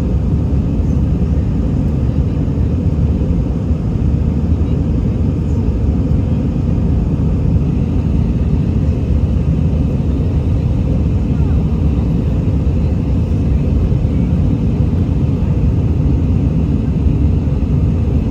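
Steady low rumble inside an Airbus A319 airliner cabin: engine and airflow noise, even and unbroken throughout.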